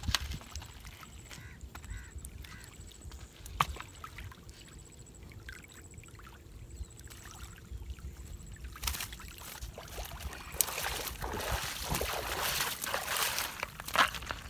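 Water sloshing and streaming as a mesh keepnet full of fish is lifted out of shallow lake water. The sound is soft at first and grows much louder from about nine seconds in, as the net comes up and the water pours off it.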